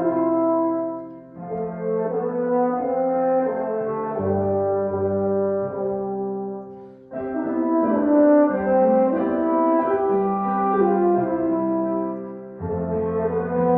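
Slow instrumental music of sustained chords with a mellow, horn-like tone, moving in phrases with brief breaks between them, over a low held bass.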